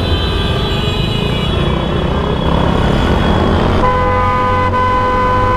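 Vehicle horns honking in stopped traffic over running motorcycle engines and road noise: several horns sounding together at first, then one horn held steadily for about two seconds near the end. Typical of impatient riders honking at a slow-moving intersection.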